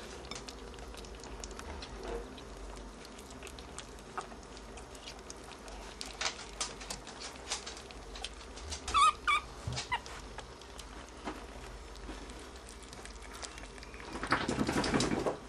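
Baby ferrets eating raw meat from a plate: a run of small wet clicks and smacks of chewing and lapping. About nine seconds in a kit squeaks twice, short and high, and near the end there is a louder burst of rustling.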